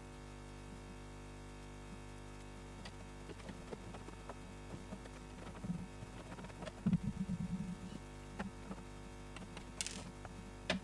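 Faint knocks, taps and rubbing of hands handling a 3D-printed plastic model airplane's airframe, over a steady low hum. The handling is busiest about two-thirds of the way through, and there is a short sharp click near the end.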